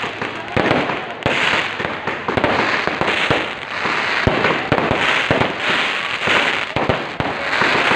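Fireworks and firecrackers going off without pause: many sharp bangs over dense, repeated waves of crackling.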